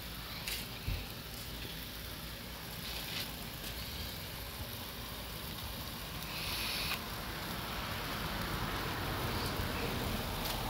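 Meat sizzling and crackling on the grate of a kettle grill, a steady hiss with a single low knock about a second in.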